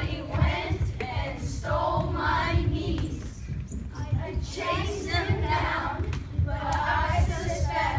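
Choral singing in voices that rise and fall about once a second, over a steady low thumping.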